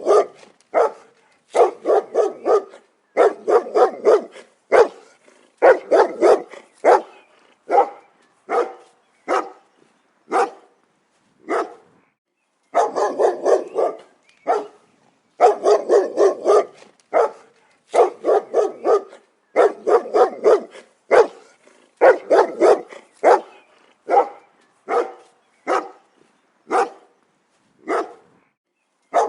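A dog barking repeatedly in quick bursts of several barks, with short pauses between bursts.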